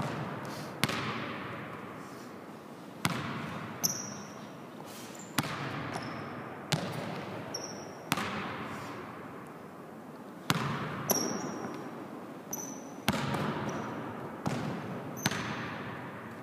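Basketball bouncing on a hardwood gym floor, about a dozen sharp bounces, sometimes in quick pairs, each with a long echo in the big gym. Short high sneaker squeaks come between them as the player pivots.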